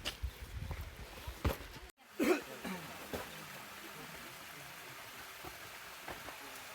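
Low footstep-like thumps and knocks for about two seconds; then, after an abrupt cut, a short voice-like sound and a steady rush of stream water.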